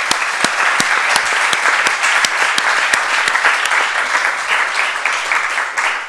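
Audience applause, many people clapping steadily in a lecture hall, with a few sharper individual claps standing out near the start.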